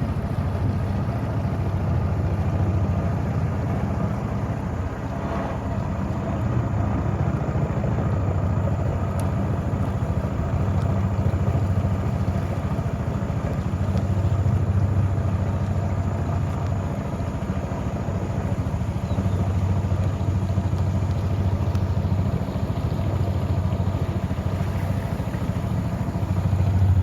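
Small river boat's engine running steadily at cruising speed, with a low hum that swells and eases slightly.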